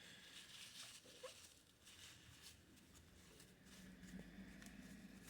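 Faint, soft rubbing of a WD-40-dampened paper towel wiping a glossy-painted typewriter panel, with a low hum coming up about four seconds in.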